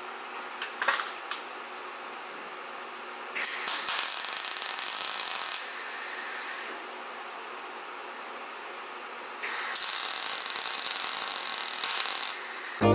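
MIG welder welding a steel patch panel onto a van body: two runs of steady crackling hiss, the first starting about three seconds in and the second near ten seconds, each lasting two to three seconds. A few light clicks near the start.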